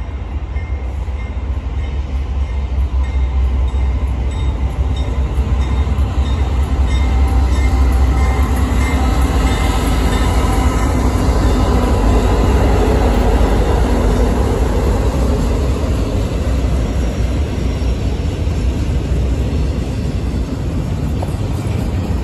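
Norfolk Southern diesel locomotives hauling a double-stack intermodal freight train past: a steady deep engine rumble that swells as the locomotives go by about halfway through, then the running noise of the container well cars rolling on the rails.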